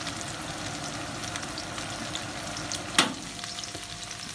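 Onions sizzling and crackling as they sauté in a wok, with a single sharp knock about three seconds in.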